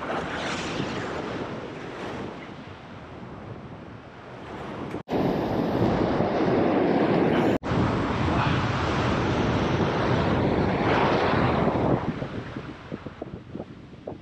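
Ocean surf washing over a rock ledge, with wind buffeting the microphone. It swells much louder from about five seconds in until about twelve seconds, broken twice by a brief dropout.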